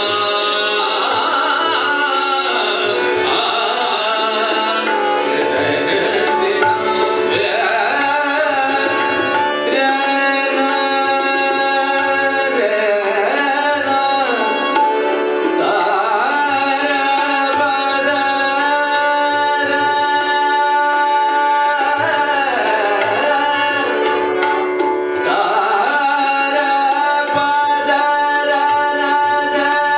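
Hindustani classical vocal music: male voices singing sustained and gliding melodic phrases over a harmonium's steady chords, with tabla strokes keeping the rhythm.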